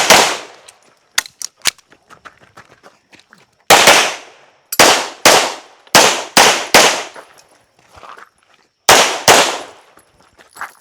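Pistol shots fired in quick pairs with pauses between, about ten cracks in all, each with a short echo: a shooter engaging targets on a practical shooting stage.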